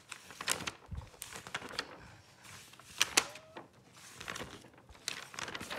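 Glossy paper pages of a Panini football sticker album being turned and handled: scattered rustles and light paper snaps, the loudest pair of snaps about three seconds in.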